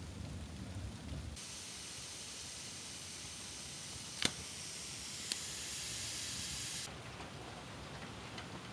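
Steady hiss of snow falling, with two sharp ticks a second apart near the middle, like drips or clumps of snow landing.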